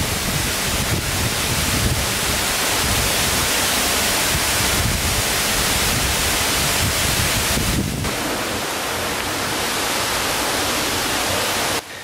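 Potem Falls, a 69-foot waterfall plunging into its pool: a steady rush of falling water that breaks off abruptly near the end.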